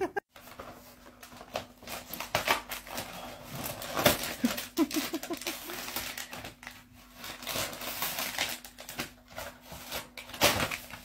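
Paper or plastic wrapping rustling and crinkling in fits and starts, over a faint steady hum.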